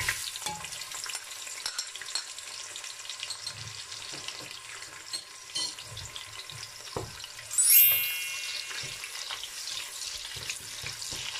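Sliced onions sizzling and crackling as they fry in hot cooking oil in a stainless-steel pot, with a spatula stirring them. A brief high-pitched squeak about two-thirds of the way through is the loudest sound.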